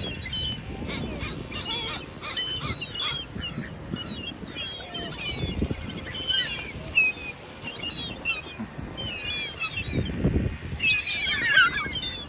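A flock of geese and ducks calling: repeated honks and chatter from many birds at once, busiest near the end.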